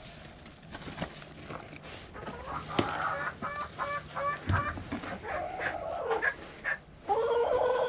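Backyard hens clucking: a quick run of short clucks a couple of seconds in, more calls after it, and a longer drawn-out call near the end.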